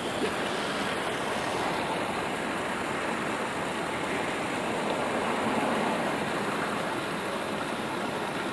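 Steady rain on a city street mixed with the hiss of traffic on wet pavement, swelling a little around the middle as a vehicle passes.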